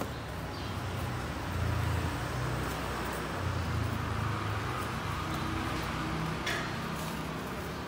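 Low, steady engine-like rumble that swells twice, with a single sharp click near the end.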